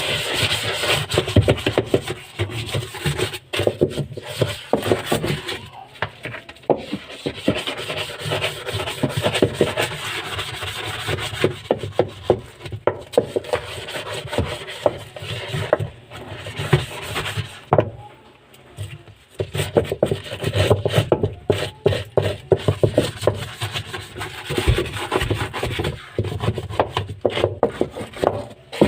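Scrubbing brush rubbing parts of a washing machine in quick back-and-forth strokes, with a short pause about eighteen seconds in.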